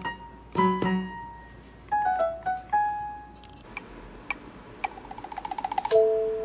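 Light background music of short pitched notes: a run stepping down, then a fast run of repeated notes growing louder, ending on a held two-note chord.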